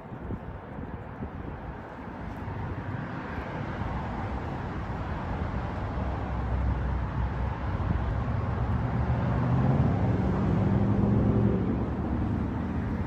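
A motor vehicle approaching and passing on a road: a rush of tyre and engine noise that builds steadily, with a low engine hum, loudest about ten to eleven seconds in and easing slightly near the end.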